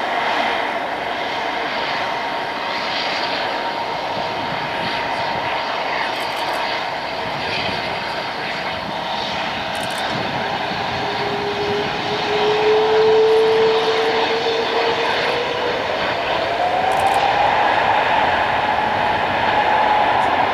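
Jet engines of a Boeing 777-300 running at high power: a steady rushing noise with a whine that climbs in pitch over the second half as thrust builds for take-off.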